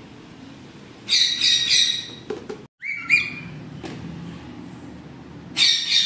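Rose-ringed parakeet giving loud, shrill calls: a quick run of about three about a second in, a single call around three seconds, and another burst near the end.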